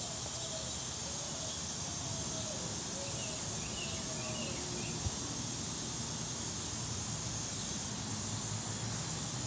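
Steady hiss of background noise with no speech, and one soft click about five seconds in.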